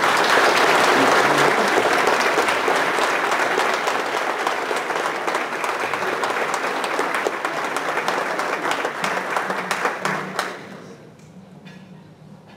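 Audience applauding steadily, then dying away after about ten seconds.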